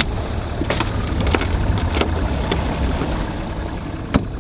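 Boat motor running with a steady low rumble, with water splashing against the hull and several sharp knocks, the loudest near the end.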